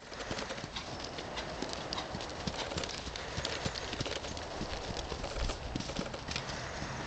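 Hoofbeats of a ridden horse moving around a dirt arena, a run of irregular thuds over a steady hiss.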